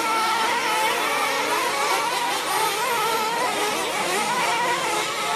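Several nitro-powered 1/8-scale RC truggy engines racing, their high-pitched whine overlapping and rising and falling as the trucks accelerate and brake around the track.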